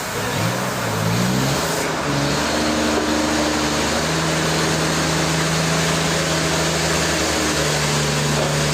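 An engine revs up over the first second or so, then runs at a steady higher speed, over a constant rushing noise.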